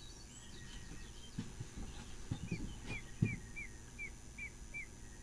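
A bird chirping: a run of six short, hooked notes about two-fifths of a second apart, with fainter higher chirps before them. A few soft low thumps come in between, the loudest a little past the middle.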